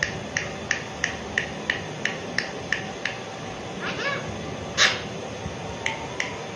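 Alexandrine parrot making a rapid run of sharp clicks, about three a second, then a short meow-like call and one loud harsh squawk just before five seconds in, followed by a few more clicks.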